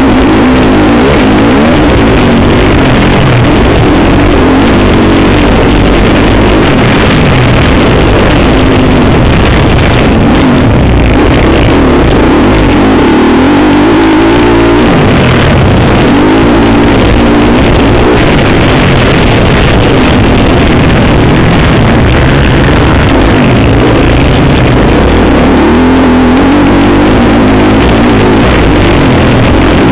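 Motocross bike engine, heard loud and close from a camera mounted on the bike, revving up and falling off over and over as it is ridden around the track, with a sudden drop in pitch about fifteen seconds in.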